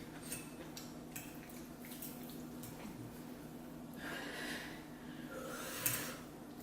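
A person eating breathing hard through the mouth, two loud breaths in the second half, after a few seconds of faint mouth clicks. A reaction to the burning heat of very spicy noodles.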